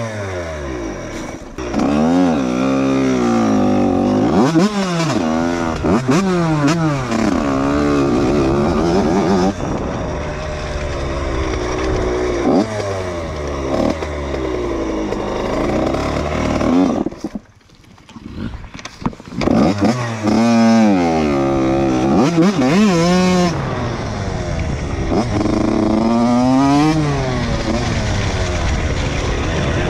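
Yamaha dirt bike engine revving up and down repeatedly while ridden, the pitch rising and falling with each twist of the throttle. About two-thirds of the way through it nearly drops out for a second or so, then revs up again.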